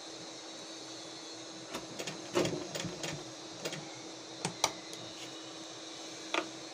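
Usha Stitch Magic electric sewing machine stitching slowly in short spurts, heard as irregular clicks and knocks clustered around the second to fifth seconds and once more near the end. It is running long basting stitches.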